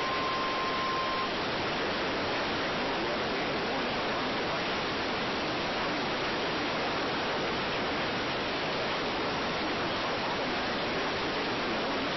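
Steady static hiss on the broadcast audio, with no programme on it. A single steady tone near 1 kHz cuts off about a second in.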